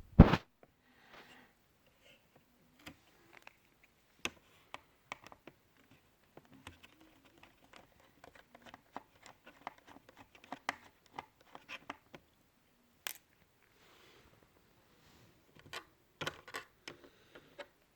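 Irregular plastic clicks and taps of laptop parts being handled and pried apart during disassembly. There is a louder knock right at the start and a quick cluster of clicks near the end.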